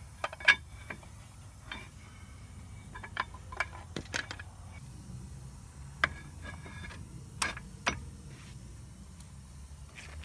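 Scattered metal clinks and knocks, several with a short metallic ring, the loudest about half a second in: brake pads and a caliper being handled and fitted over the rotor.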